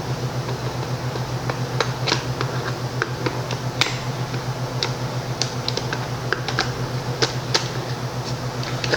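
Scattered light clicks and taps from hands and tools working on a chainsaw's plastic housing while its air cleaner cover is taken off, over a steady low hum.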